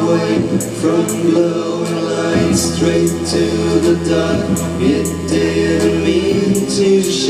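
Live rock band playing with electric guitars, synth keyboard and drums, with singing over it. Cymbal hits come at a steady beat, and the low bass note shifts about two seconds in and again near the end.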